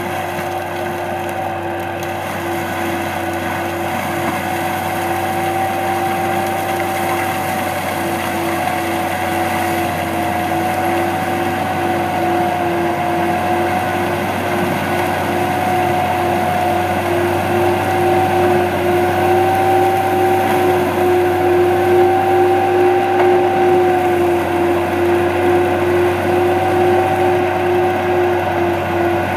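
AHWI Raptor 800 tracked forestry mulcher running under load as its mulching drum grinds through soil and brush. A steady machine drone with a held tone that wavers slightly in pitch, growing a little louder toward the end.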